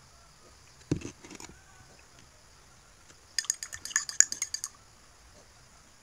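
A single knock of crockery about a second in, then a quick run of about a dozen bright metal-on-ceramic clinks: a spoon clinking against a mug of coffee.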